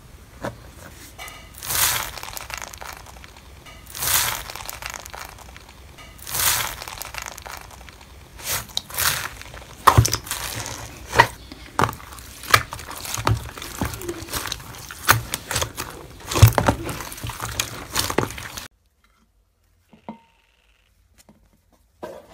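Hands pressing and stretching crunchy foam-bead slime in a plastic tub. First come three rustling swishes about two seconds apart, then many sharp crackles and pops as the beaded slime is pulled. It goes almost silent a few seconds before the end.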